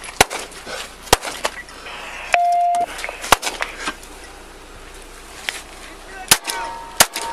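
Five sharp cracks or knocks at uneven intervals, with a brief steady beep a little over two seconds in.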